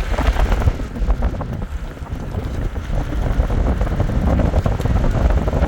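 Wind buffeting the microphone in a loud, gusty rumble, with many small knocks and rattles through it.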